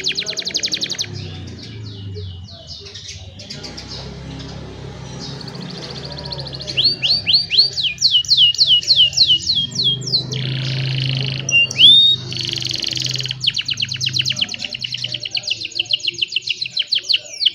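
Young domestic canaries singing: a quieter, scattered twitter for the first few seconds, then loud rapid trills and rolls, a run of downward-sweeping notes, a short buzzy note and a quick rising whistle about midway, and another long fast trill.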